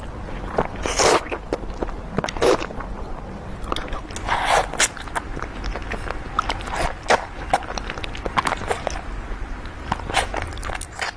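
Close-miked crunching and chewing of fresh fruit: irregular crisp bites and wet chews.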